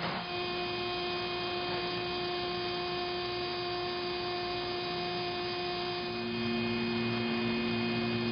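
Steady machine hum with several held tones, from the electric drive of a segmented pipe-bend assembly machine. A lower tone joins about six seconds in.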